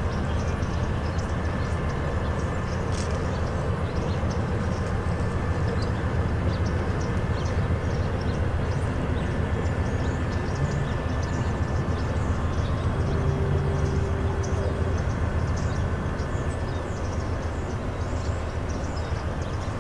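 Distant Amtrak San Joaquin passenger train with a diesel locomotive running along the shore: a steady low rumble.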